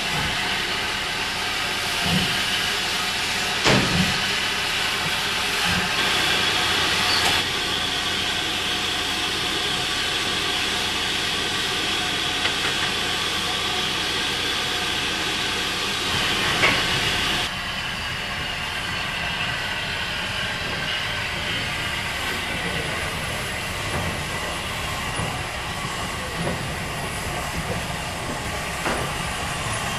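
Steam hissing from an SR U-class 2-6-0 steam locomotive standing in steam, with a few knocks. The hiss drops off suddenly a little past halfway, leaving a softer hiss.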